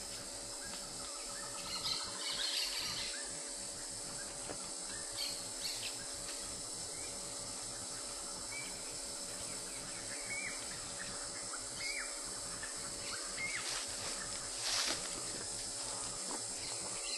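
Insects droning steadily at a high pitch, with scattered short bird chirps over them.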